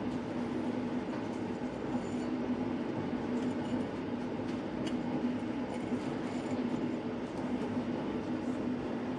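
A steady mechanical hum: an unchanging low drone over an even wash of air noise, as from a fan or ventilation unit running.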